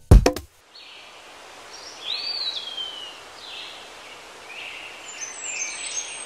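Forest ambience: an even background hiss with birds calling over it. One clear call about two seconds in rises, then slides down, and several shorter, higher calls come near the end.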